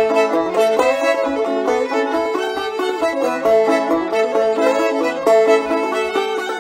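Fiddle and open-back banjo playing a Celtic reel together, the bowed fiddle carrying the melody over the banjo's steady strummed rhythm.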